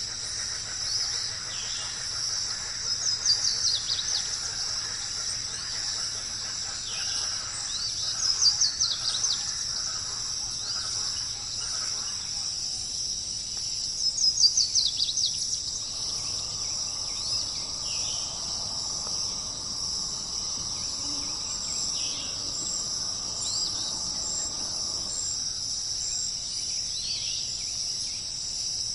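Steady high-pitched insect drone, like crickets, with birds calling over it: three loud bursts of quick, rapidly repeated notes, and single short falling calls now and then.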